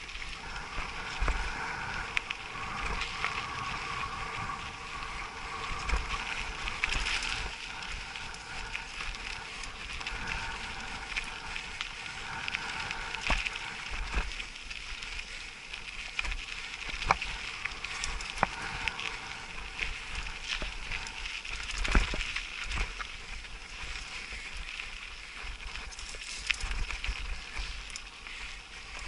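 Mountain bike riding over a rocky dirt track: tyres crunching on loose gravel, with the bike rattling and a few sharp knocks as it hits stones. A steady high chirring of insects runs underneath.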